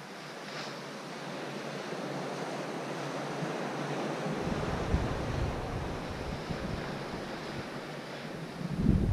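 Ocean surf washing steadily on a rocky, boulder-strewn shore. About halfway through, wind begins to rumble on the microphone, growing loud near the end.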